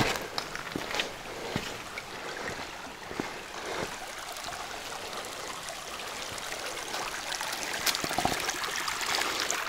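West Fork of Oak Creek, running low, flowing and trickling over rocks in a steady rush that grows a little louder near the end. A few footsteps sound in the first two seconds.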